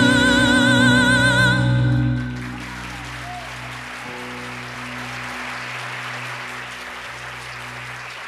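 A copla singer holds the final note of a song with a wide vibrato over sustained keyboard chords; the voice stops about a second and a half in and the chords about two seconds in. The audience then applauds steadily while a low held tone lingers underneath.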